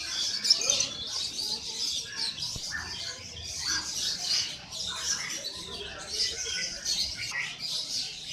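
Many caged songbirds chirping and twittering at once, a dense steady chorus of overlapping high calls.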